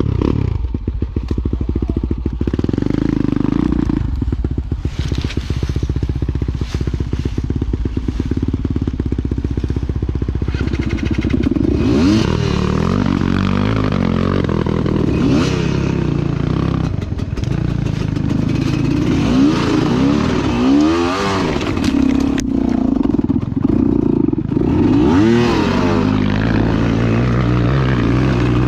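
Enduro motorcycle engine running hard under load, its pitch rising and falling over and over as the throttle is opened and shut. The revving becomes sharper and more frequent about halfway through.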